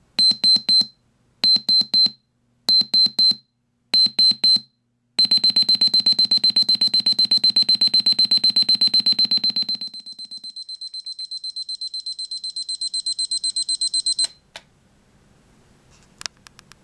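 Timex T123S digital alarm clock's alarm played through generic computer speakers added by a hack. It beeps in groups of rapid high beeps about once a second, then from about five seconds in gives a continuous string of fast beeps. The beeps drop quieter about ten seconds in, grow steadily louder again, and cut off suddenly about two seconds before the end, followed by a few faint clicks.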